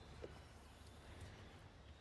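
Near silence: a faint low hum with one soft tick about a quarter second in.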